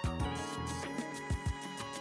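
Background music with held notes and low drum hits.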